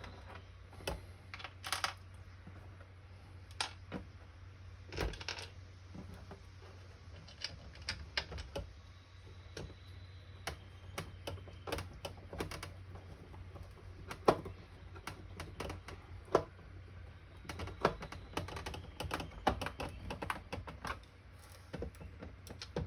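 Hand screwdriver driving screws into the plastic back cover of a jump starter: scattered, irregular clicks and taps of the driver and screws, over a steady low hum.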